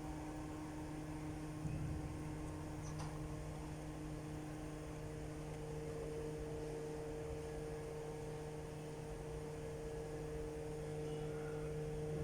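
Steady electrical mains hum: a low, even buzz with several overtones that holds throughout, with a faint tick about three seconds in.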